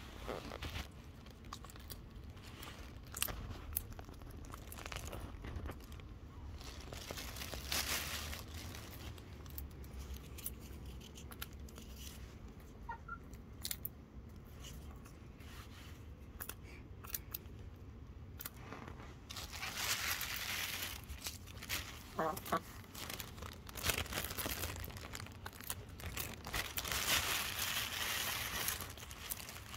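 Chickens pecking at popcorn in the grass: a string of sharp, irregular pecking clicks and crunches, with longer stretches of crinkling rustle about twenty seconds in and again near the end.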